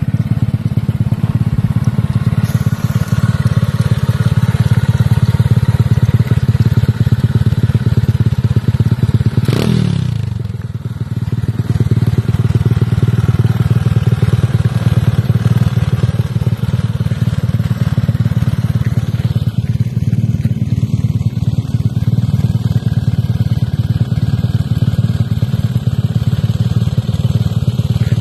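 Small quad bike (ATV) engine running steadily. About ten seconds in, a brief sound sweeps down in pitch and the engine noise dips for a moment before carrying on.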